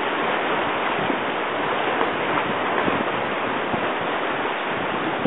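Steady rush of river whitewater rapids around the raft.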